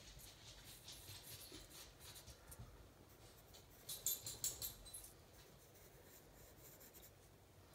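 Graphite pencil scratching faintly on drawing paper in short strokes, with a cluster of louder scratchy strokes about four seconds in.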